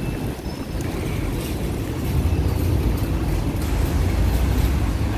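Roadside street noise: a low rumble of road traffic that grows louder about two seconds in.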